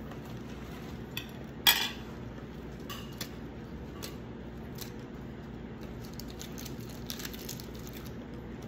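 A sharp clink, as of a metal spoon against a china plate, about two seconds in, then soft crackles and ticks of crisp lettuce leaves being handled and torn, over a steady low room hum.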